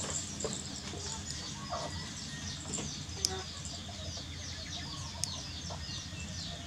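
Two sharp snips of a steel cuticle nipper trimming a baby monkey's toenails, about two seconds apart, over continuous rapid high-pitched chirping of birds.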